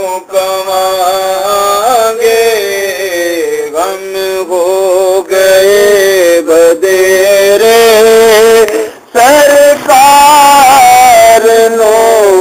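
A singing voice holding long, drawn-out, wavering notes in a slow chant-like song, with a brief break about nine seconds in.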